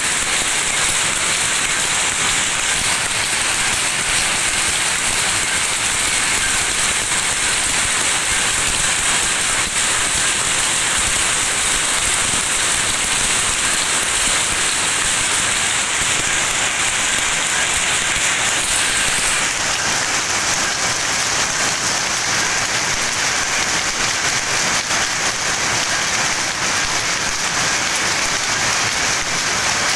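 Rows of powerlooms running together in a weaving shed, a loud, dense, unbroken clatter of many looms beating at once.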